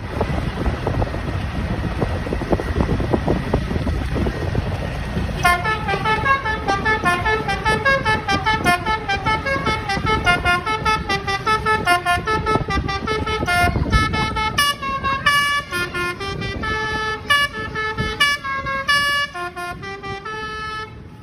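A bus's multi-tone telolet horn playing a fast run of changing notes like a tune, starting about five seconds in over engine and wind rumble, the notes coming slower and more spaced out in the last several seconds.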